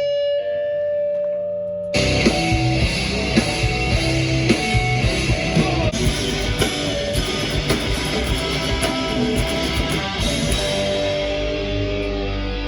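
Rock music with guitar: a single held note rings alone, then drums and the full band come in about two seconds in.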